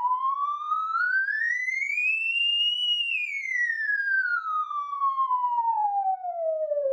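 A pure test tone sweeping smoothly up in pitch to a peak about three seconds in, then gliding back down, played through a pair of Focal 6.5-inch polyglass midbass drivers.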